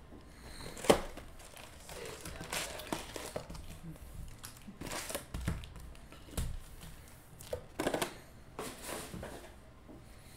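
Cardboard trading-card hobby box being torn open and its foil-wrapped card packs handled: crinkling and tearing, with a sharp snap about a second in and scattered crackles after.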